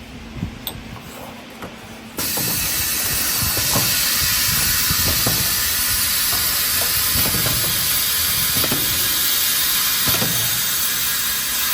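Semi-automatic perfume filling machine running its automatic filling cycle: a few light clicks, then about two seconds in a loud, steady air hiss cuts in and holds.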